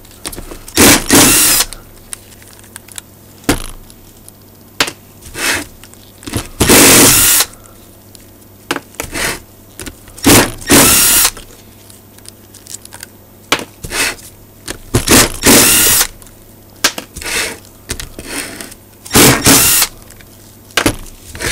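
Red Milwaukee cordless driver spinning out the steel bolts around the flange of an antenna rotator's cast housing, in about a dozen short bursts of the motor with pauses between as it moves from bolt to bolt.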